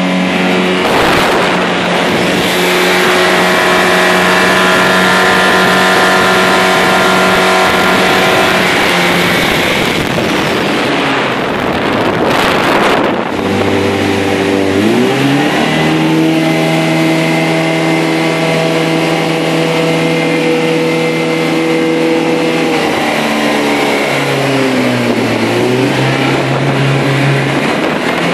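Small motorboat's engine running at speed, with water and wind rushing past the hull. Its pitch drops about halfway through, then steadies, and dips again and picks back up near the end; a burst of rushing noise comes about a third of the way in.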